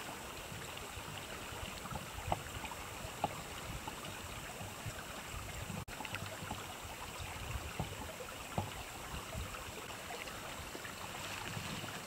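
Wind outdoors, with an uneven low rumble of wind on the microphone and a steady hiss. The sound drops out for an instant about six seconds in.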